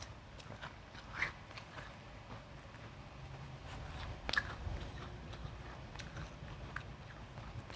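Refrozen crushed ice being bitten and chewed: scattered crisp crunches, the two loudest about a second in and near the middle.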